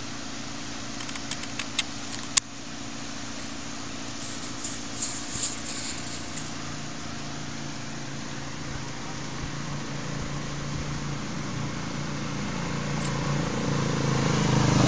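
A steady engine hum, like a motor vehicle idling, with a few sharp clicks about two seconds in; the hum grows louder toward the end.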